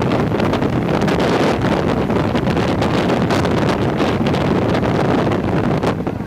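Waterfall rushing, loud and steady, with wind buffeting the microphone.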